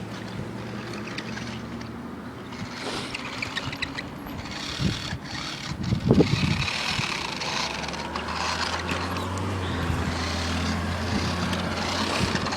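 Battery-powered RC truck driving over rough ground: its motor runs steadily, with a few knocks about six seconds in.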